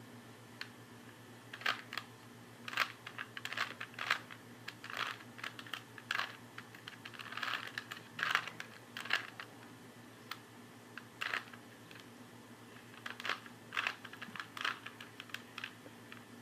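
Plastic Rubik's Cube being twisted by hand: irregular clicking and clacking of the layers turning, in quick clusters with short pauses.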